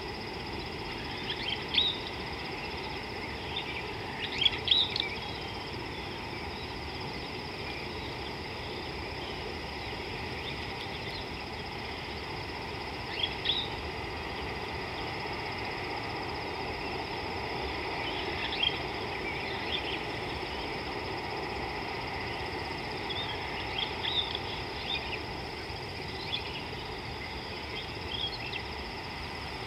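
Short bird chirps in small clusters at irregular intervals, over a steady outdoor background hiss with a faint continuous high insect-like tone.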